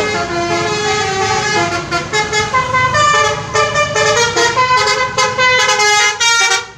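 Bus telolet horn, a multi-tone musical air horn, playing a quick tune of short, stepped notes, over a low engine rumble.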